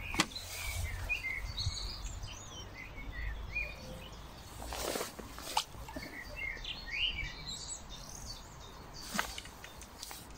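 Small birds singing and calling in short chirps and trills throughout, over a low rumble of wind on the microphone in the first half. A few sharp clicks stand out, the loudest about a quarter-second in and another around five and a half seconds.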